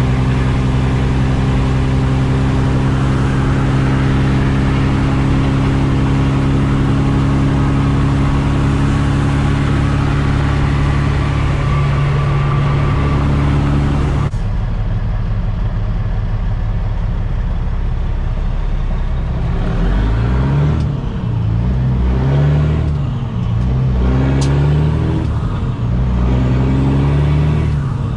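Kenworth T800's Caterpillar C15 diesel engine running steadily at highway cruise. About halfway through its sound changes suddenly, as if the throttle is let off. In the last several seconds the revs rise and fall several times as the driver shifts down while slowing for a ramp.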